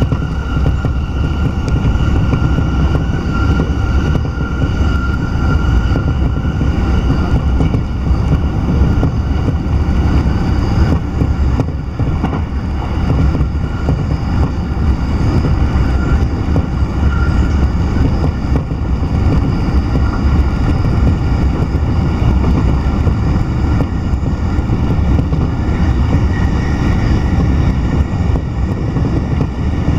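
Sobu Line electric commuter train running at speed, heard from inside the carriage: a loud, steady low rumble of wheels on rails with a faint high whine over it.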